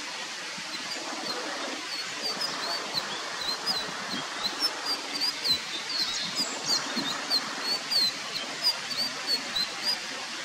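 Indigo flycatcher singing: a long run of short, high, quick notes that hook up and down, about three a second, starting about a second in, over a steady background hiss.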